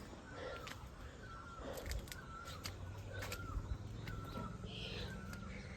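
A bird calling over and over, short harsh calls about twice a second.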